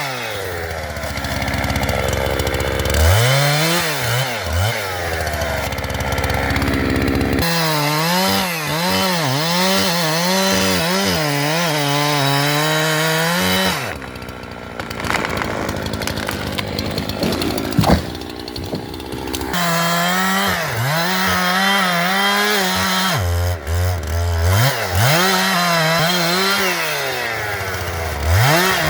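Jonsered two-stroke chainsaw running at high revs and cutting into a tree, the engine pitch dipping and recovering as the chain bites. The sound changes abruptly several times, with a quieter stretch past the middle and a sharp crack about two-thirds through.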